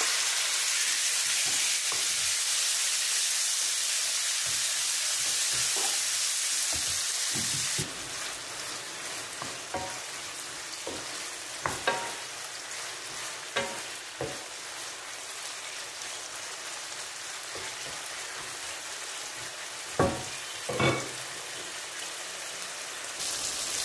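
Chicken pieces sizzling in oil in a nonstick frying pan, stirred with a wooden spoon. The sizzle is loudest at first and drops abruptly to a quieter, steady frying about eight seconds in, with a few knocks of the spoon against the pan later on.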